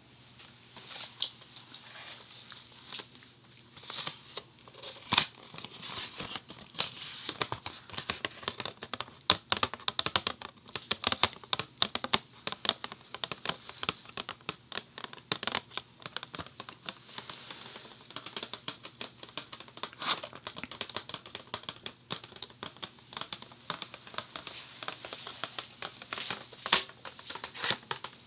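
Fingertips and nails tapping and scratching on a Funny Foam box close to a binaural dummy-head microphone: a dense, irregular run of quick taps and scratchy strokes.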